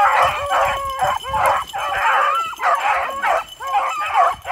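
A pack of beagles baying together while running a scent trail: several hounds' overlapping, wavering bays and yips, one call after another with no break.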